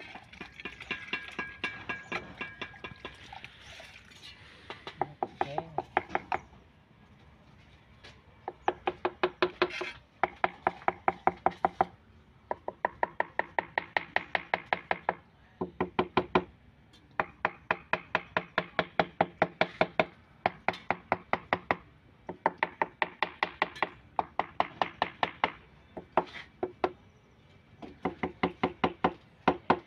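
Ceramic tile being tapped rapidly with the end of a hand tool to bed it into the mortar, in quick runs of about seven or eight taps a second lasting a second or two, with short pauses between runs. Each run has a hollow ringing tone.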